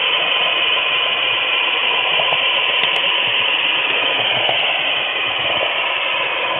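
HO scale flat car rolling along model railroad track, its wheel rattle and vibration picked up close through the camera riding on the car: a steady rattling hiss with a faint steady tone and a single click about three seconds in.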